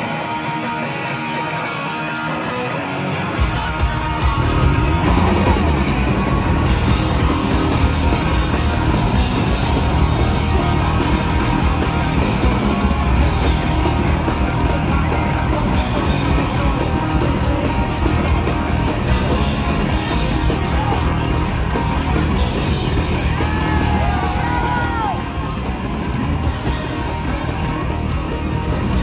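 Punk rock band playing live: an electric guitar alone at first, then drums and bass guitar come in about three seconds in and the full band plays on loudly with a singer's vocals.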